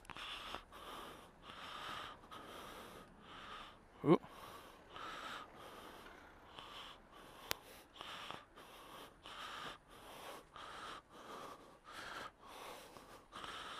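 A person's breathing close to the microphone, in regular puffs about two a second. A short, loud rising squeak comes about four seconds in, and a sharp click a few seconds later.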